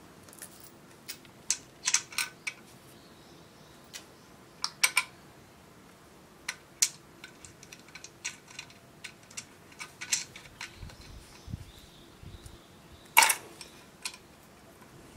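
Scattered small metallic clicks and taps of screws and washers being handled and fitted to a drill stand's metal base plate, with one louder clank about thirteen seconds in.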